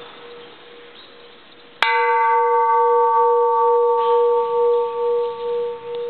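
Small antique bronze Japanese Buddhist temple bell struck once with a light, uncushioned striker about two seconds in. It rings on with a strong low hum and a cluster of higher overtones that die away first, while the hum keeps sounding with a slow pulsing waver. Before the strike, the fading hum of an earlier strike is faintly audible.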